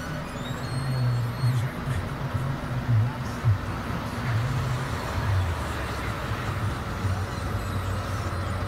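Scania R580's V8 diesel engine idling, heard from inside the cab as a steady low rumble, with a few brief knocks from handling about a second and a half, three and three and a half seconds in.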